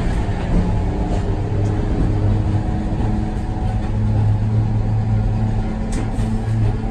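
Streetcar running through a curve, heard from inside the cab: a steady low motor hum that grows stronger about four seconds in, over the rumble of steel wheels on the rails, with a brief sharp click near the end.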